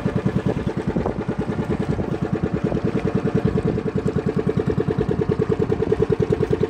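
Small engine of a motorized outrigger boat (bangka) running steadily under way, with a rapid, even chugging beat.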